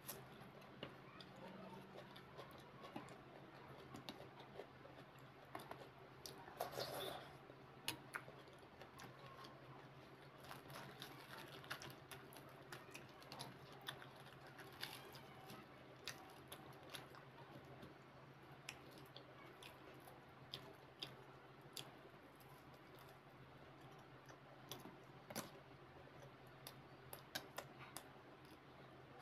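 Faint close-miked eating sounds: scattered soft mouth clicks and chewing of fried bhatura bread and chickpea curry, with a slightly louder cluster about seven seconds in.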